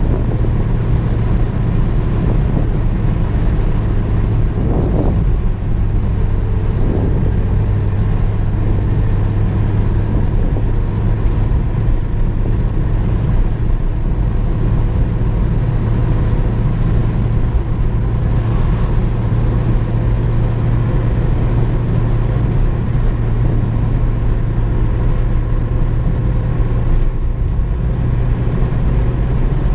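A vehicle's engine running steadily under road and tyre noise, heard from inside the cab while driving: a constant low drone with no change in pitch.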